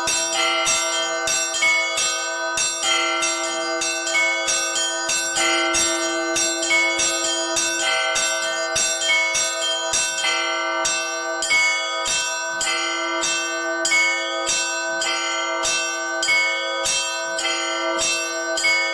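Orthodox church bells rung by a single bell ringer: a fast, continuous peal of strikes on the smaller bells, about three to four a second, over a deeper bell tone sounding steadily beneath them.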